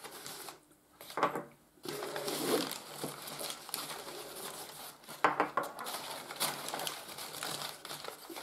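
Brown packing paper rustling and crinkling as hands rummage through it, with a few sharp clicks of small miniature vehicle models being set down on a wooden tabletop.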